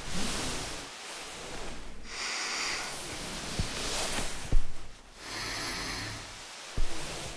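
Slow, heavy breathing of a person asleep, the breaths swelling and fading every second or two, with a few short clicks.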